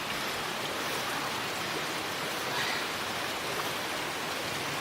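Steady rushing of water from a nearby waterfall and stream.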